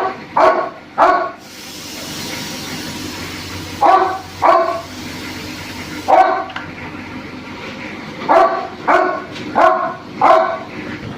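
A dog barking repeatedly, about ten short barks in groups of two to four, over a steady hiss during the first half.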